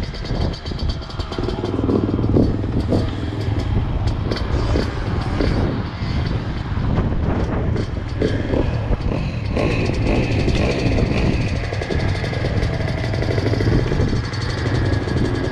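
Motocross bike engine running steadily at idle, a low even hum, with scattered knocks and clatter mostly in the first half.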